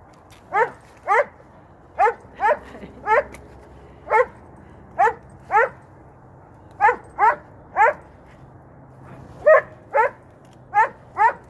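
A dog barking over and over: about fifteen short, high barks, some single and some in quick pairs.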